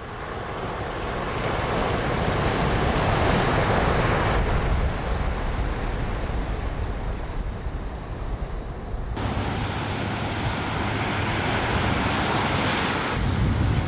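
Ocean surf: a steady wash of breaking waves with a low rumble of wind. It fades in at the start, swells twice, and changes abruptly in tone about two-thirds of the way through.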